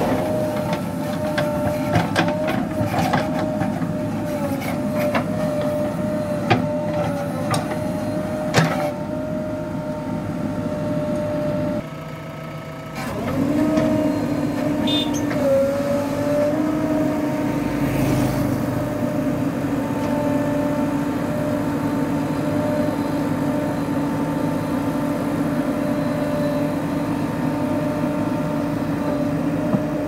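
A JCB 3DX Super backhoe loader's diesel engine running steadily with a whining tone while the backhoe works. Sharp knocks and clatter come through the first nine seconds. The sound drops for about a second around twelve seconds in, then the engine drone returns steady.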